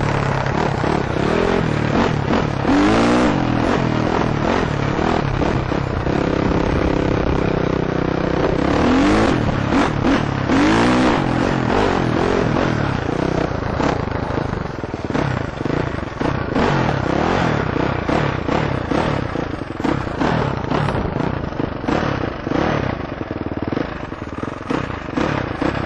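KTM 450 four-stroke dirt bike engine under riding load, revs rising and falling as it is ridden and shifted along a dirt trail, with many short knocks and rattles throughout.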